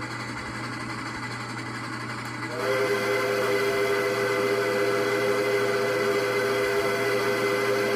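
Southern 4501 steam locomotive's whistle sounds one long, steady blast of several notes at once, starting about two and a half seconds in and bending slightly up in pitch as it opens.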